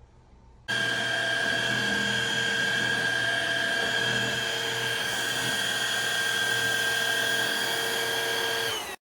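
Cordless stick vacuum cleaner's motor running steadily with a high whine and rushing air. It starts suddenly just under a second in and cuts off abruptly near the end.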